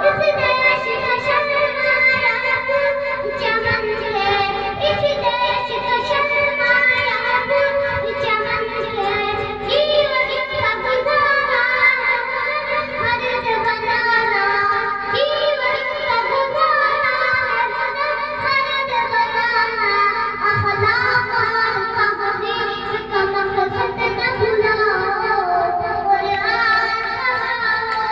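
A young boy singing a devotional song in long, bending melodic phrases into a headset microphone.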